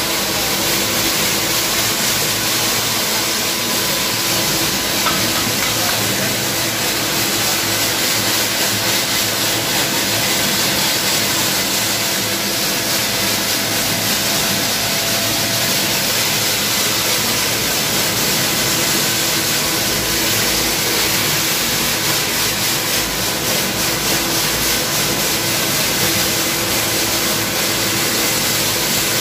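Refractory gunning nozzle spraying castable mix on a jet of compressed air: a loud, steady hiss that runs without a break, with a faint steady mechanical hum beneath it.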